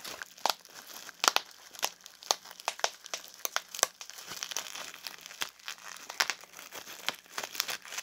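Plastic packing material being pulled off and crumpled by hand, crinkling with irregular sharp crackles and snaps, a few a second.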